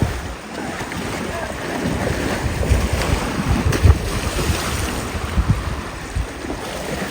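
Wind gusting on the microphone in irregular low rumbles, over a steady rush of river water.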